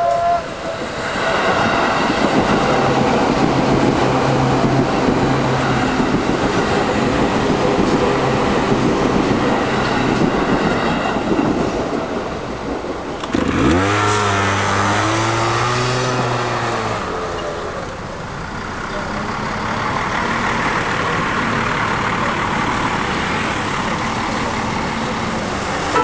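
Seibu Line commuter train running past over a level crossing for about twelve seconds, with steady wheel-and-track noise and a low motor hum, after the crossing bell's last ringing tone fades about a second in. Then, as the barriers lift, engines rise sharply in pitch as waiting vehicles pull away, and steady street traffic noise follows.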